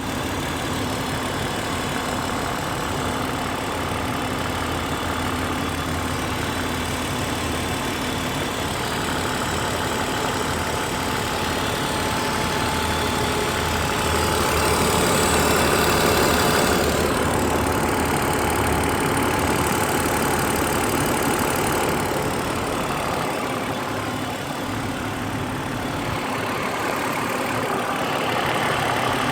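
Car engine running with a clattering, diesel-like ticking from the valvetrain, which the owner suspects is lifter tick. It gets a little louder about halfway through.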